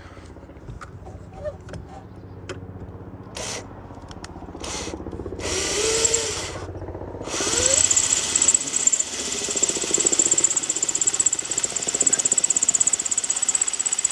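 Power drill run in a few short bursts, then spun up and held running for about eight seconds with a steady high whine before it stops.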